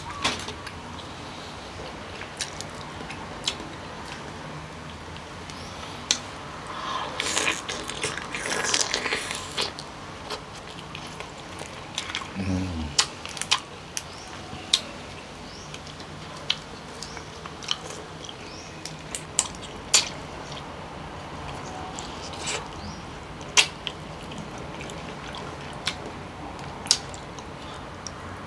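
Close-up sounds of a person eating king crab: wet chewing and biting with many sharp clicks and cracks as the crab leg shell is handled and pulled apart. A short low hum near the middle.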